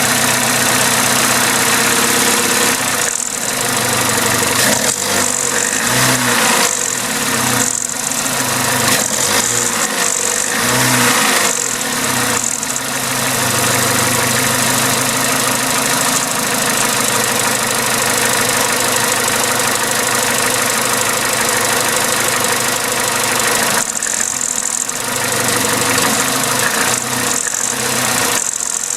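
Vauxhall/Opel A14XER 1.4-litre inline-four petrol engine running with a timing chain rattle, its speed rising and falling a few times in the first half. The rattle is the sign of a failing timing chain that went on to jump a tooth.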